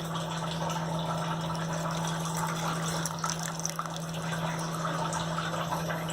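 Sambar broth of tamarind water and ground tomato-onion paste heating in a pot and coming to a boil, with a steady bubbling, over a constant low hum.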